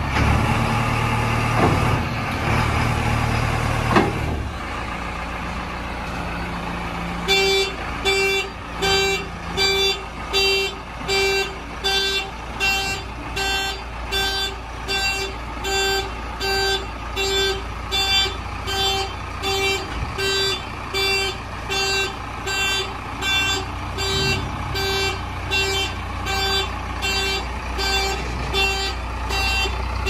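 Diesel engine of a JCB 3DX backhoe loader running steadily. From about seven seconds in, a reversing alarm sounds a steady train of pitched beeps, about three every two seconds, over the engine.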